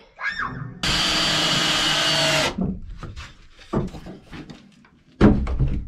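Cordless drill running steadily for about two seconds as it drives a screw into a wooden rail, followed by a few small knocks and a thump near the end.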